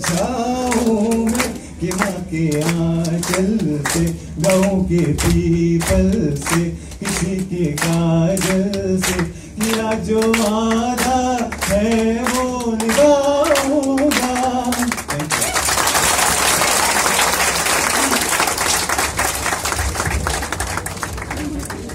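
A man singing a melody without accompaniment while a room of people claps along to a steady beat; about fifteen seconds in the song ends and breaks into general applause.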